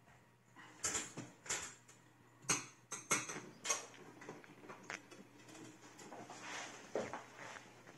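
Irregular light metallic clicks and taps, about a dozen, the loudest in the first four seconds, as the oven thermostat's sensor and its wire are handled and fitted back into the oven's metal housing.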